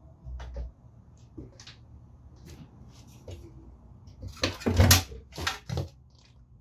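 Scattered clicks and clinks of hand tools on metal while the exhaust is taken off a 1970 Honda CT70H motorcycle, with a burst of louder knocks and clatter about four and a half seconds in.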